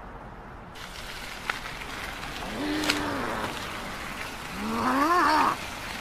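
A cartoon character's voice groaning twice in pain, each a drawn-out moan that rises and then falls, the second louder, with a couple of faint clicks before them.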